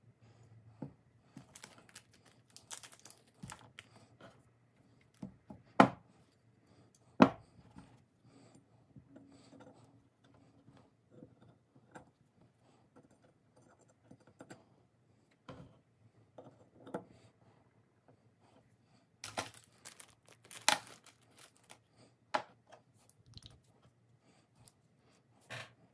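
Hands handling small pistol parts and a red dot sight on a bench covered in paper towels: scattered light clicks and taps, two sharp knocks about six and seven seconds in, and a burst of rustling and crinkling around twenty seconds in.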